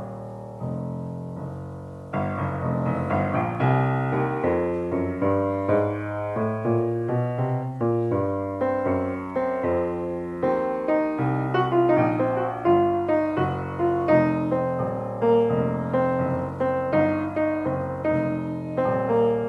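1923 Steinway Model M grand piano, restrung with new bass strings, being played: a few long-held low chords, then from about two seconds in a flowing run of chords and notes across the bass and middle range.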